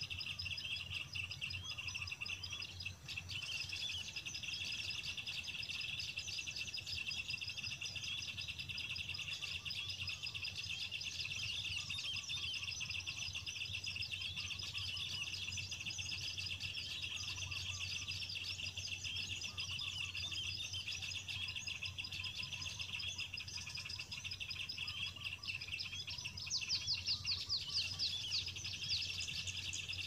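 A small-bird lure-call recording playing from an MP3 player: dense, continuous chirping and twittering of many small birds, over a low steady hum. A few seconds before the end, a run of louder, sharp, rapid chirps comes in.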